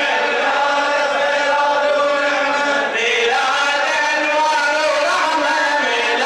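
Male reciter chanting a hosa, an Arabic celebratory verse, in a loud, long-held voice, with a new phrase starting about three seconds in.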